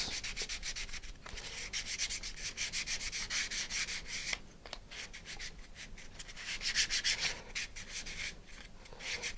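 Sandpaper on a hand sanding block rasping against a small laser-cut plywood part in quick back-and-forth strokes, with a short pause about halfway through. The wooden part is being smoothed on both faces.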